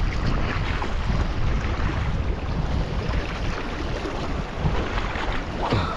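Wind buffeting the microphone, with the wash of sea waves breaking against rocks.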